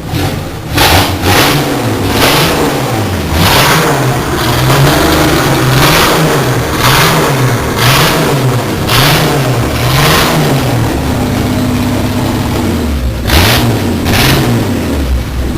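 Rural's 4.1-litre engine being revved in repeated throttle blips, about one a second, the pitch rising and falling each time. It settles into steady running for a couple of seconds before another rev near the end.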